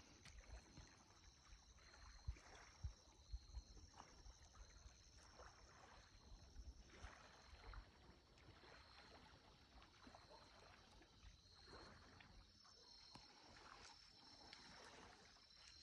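Very faint evening nature ambience: a steady, high-pitched chirping that pulses in a regular rhythm, with soft low rumbles and a few light knocks.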